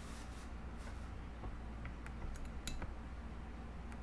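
A few small, sharp clicks and light taps from handling objects, bunched between about one and a half and three seconds in, over a steady low hum.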